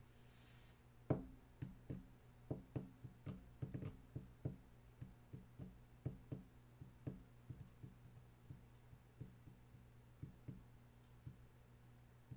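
A run of faint light taps or knocks, irregular at about two to three a second, the first one about a second in the loudest, dying away near the end, over a steady low hum.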